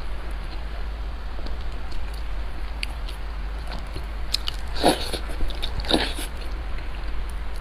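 Close-miked chewing and biting of food, with scattered small mouth clicks and two louder bites about five and six seconds in, over a steady low hum.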